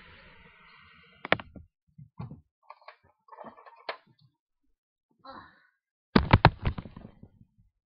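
Handling noise: scattered soft knocks and thumps with some rustling as plush toys are moved about by hand, then a quick run of several loud knocks about six seconds in.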